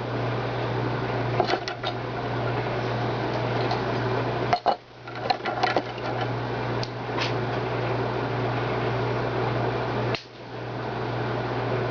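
A steady low mechanical hum with scattered light clicks and scrapes, likely Romex cable being slit and pulled apart with a razor blade. The sound drops out briefly about four and a half seconds in and again about ten seconds in.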